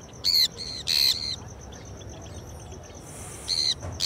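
Sun conures screeching: several short, loud, harsh calls spaced irregularly, a couple in the first second and more near the end.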